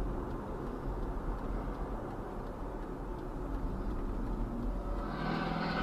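Steady low rumble of road and engine noise inside a moving car, picked up by the dashcam, with faint ticks. About five seconds in, a louder, higher-pitched sound comes in over it.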